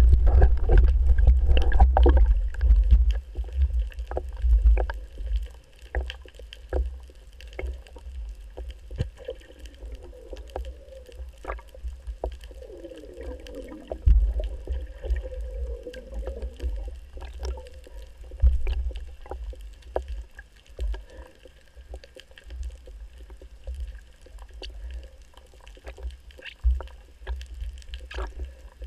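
Underwater sound through a GoPro's waterproof housing on a speargun: a muffled low rumble of water moving past, loudest in the first few seconds and again briefly in the middle, with scattered clicks and knocks. A few wavering, moan-like tones come and go between about a third and halfway through.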